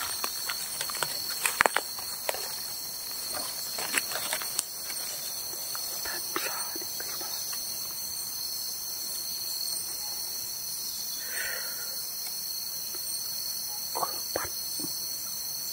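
A chorus of forest insects drones steadily in several high-pitched bands. Scattered short clicks and crackles come in the first few seconds and again near the end.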